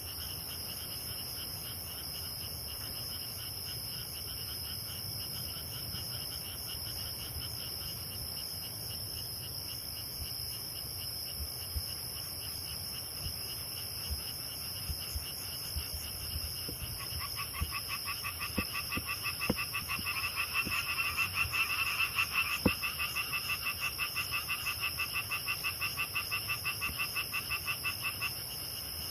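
Frogs calling in a night chorus with grass insects trilling steadily. About two-thirds of the way in, a nearer frog starts a fast run of pulsed croaks, the loudest thing heard, and stops suddenly near the end.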